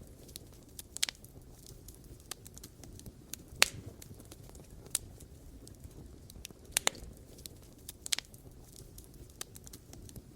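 Wood campfire burning: sharp irregular crackles and pops, a few louder snaps among many faint ticks, over a low steady rumble of the fire.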